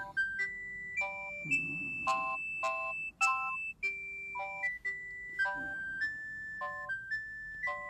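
Bird S1150 mobile phone playing a polyphonic ringtone: a synthesized, bell-like melody of high notes changing about every half second over short chord notes below.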